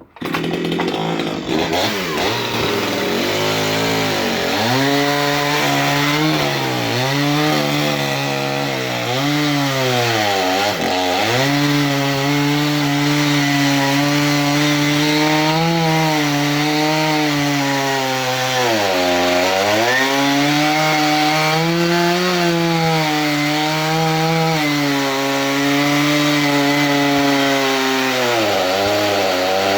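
Wood-Mizer portable band sawmill running, its engine note sagging and recovering over and over as the band blade cuts through a log, with the deepest dips about 10 and 19 seconds in.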